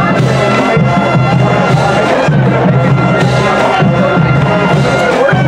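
Loud music with long held notes over a pulsing low beat.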